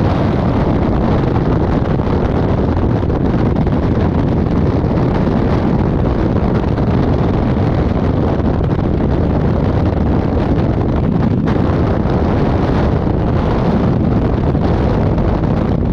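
Freefall wind blasting across the camera's microphone: a loud, steady rush of air, heaviest in the low end, with no break.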